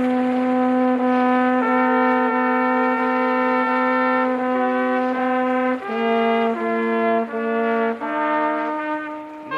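Brass ensemble playing slow, sustained chords: one long held chord that fills out as more parts come in, then several shorter chord changes in the last few seconds.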